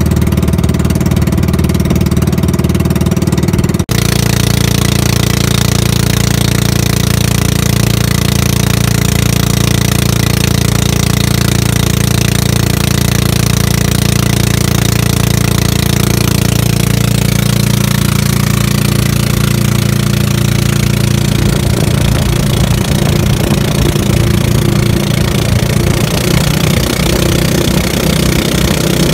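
Engine of a motorized outrigger boat running steadily under way, over a hiss of rushing water and wind. The sound changes abruptly about four seconds in.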